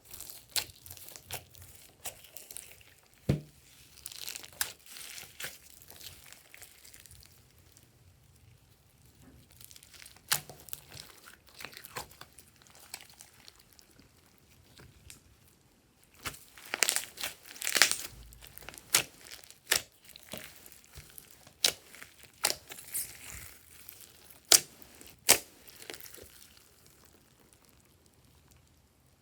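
Glossy slime being squished and stretched by hand, giving irregular sharp crackles and clicking pops. A quieter patch falls in the middle, then dense crackling follows.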